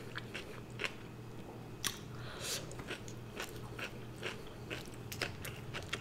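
Close-miked chewing: a person eating, with irregular crisp crunches and mouth clicks.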